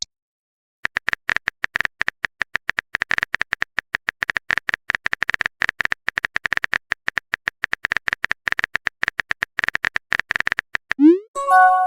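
Rapid run of keyboard typing clicks, several a second, as a message is typed out. Near the end comes a short rising swoosh and then a brief chime, like a message being sent.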